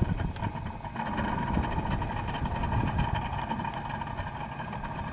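Yamaha outboard motor on a small speedboat idling steadily.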